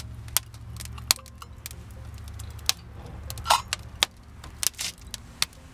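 Wood fire in a small wood-burning backpacking stove crackling: scattered, irregular sharp pops over a low steady rumble.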